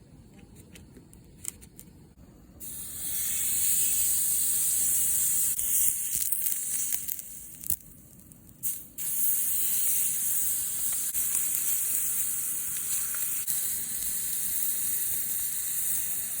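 Steak sizzling on a hot rock-salt plate: a steady, loud hiss that starts about two and a half seconds in, drops out briefly about halfway, then carries on.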